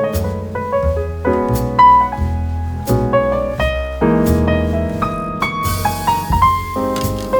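Background piano music: a steady instrumental piece of changing chords and melody notes.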